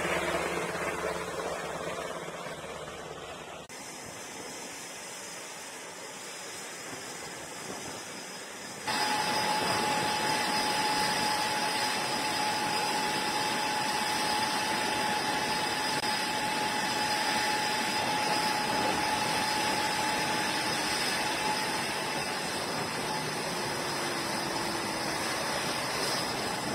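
Jet aircraft engine running on a carrier flight deck: a steady rush with a high whine, cutting in suddenly about nine seconds in after a quieter stretch of noise. Before that, a helicopter's rotor noise fades away.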